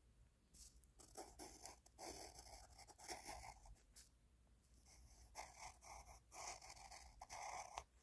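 Faint scratching of a pencil drawn across paper in short strokes, in two spells: one starting about a second in, the other about five seconds in.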